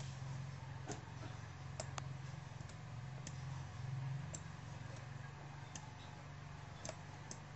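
Scattered computer mouse clicks, about eight at uneven intervals, over a low steady hum.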